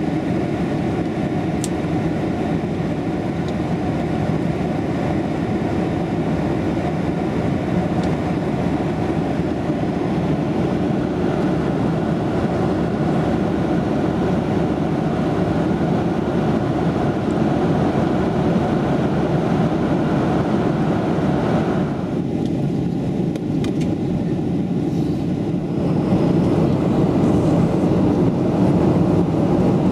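Steady cabin noise of a Boeing 737-8200 airliner in cruise flight, heard inside the cabin: a constant deep rush of engines and airflow. The higher hiss thins for a few seconds about two-thirds of the way through.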